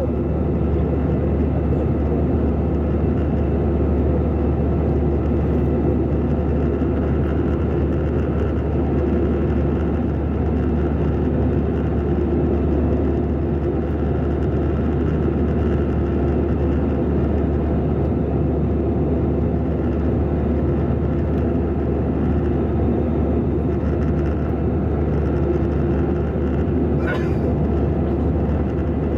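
Steady in-flight cabin noise of an Airbus A320-214 heard from a window seat by the wing: an even rush of airflow over the fuselage with the drone of its CFM56 turbofan engines and a deep low rumble, unchanging throughout.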